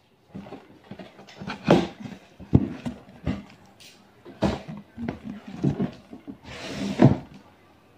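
A large cardboard box being opened by hand: irregular knocks, bumps and rustles of the cardboard, with a longer rasping scrape or tear a little before the end.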